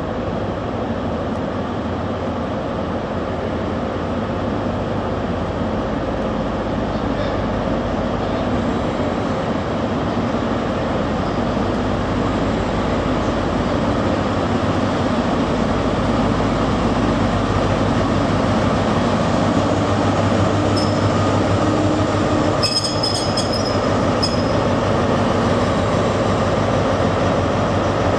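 Class 43 HST power car with an MTU diesel engine, running steadily as the train rolls into the platform and comes to a stop. A brief high-pitched wheel or brake squeal comes about three quarters of the way through.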